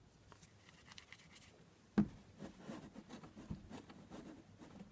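Hands working a piece of soft clay, rolling it into a coil against the table, with soft irregular rubbing and a single thump about two seconds in.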